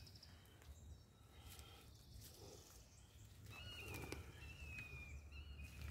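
Near silence: faint outdoor ambience with soft handling noises and a thin, slightly wavering high-pitched whine from about halfway through.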